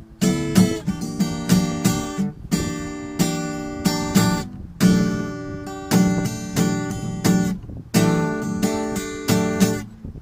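A guitar played in strummed and picked chords, each chord ringing out, with a few short breaks between phrases, as a sound test of the guitar fitted with its pickguard.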